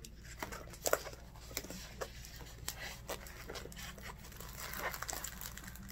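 A clear plastic bag and the paper-backed, plastic-covered diamond painting canvas crinkling and rustling as the canvas is unrolled by hand. There are scattered crackles, the sharpest about a second in.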